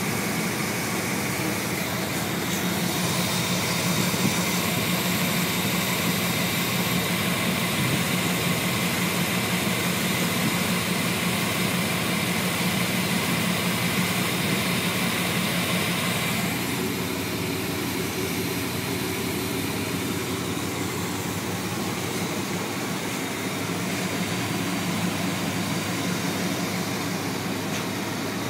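GMC pickup truck engine idling steadily, heard close up in the open engine bay. A steady high whine over the engine sound runs until about two-thirds of the way through, then stops.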